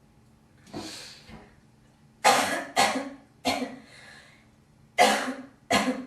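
A girl coughing: a softer throat-clearing sound about a second in, then three sharp coughs in quick succession and two more near the end.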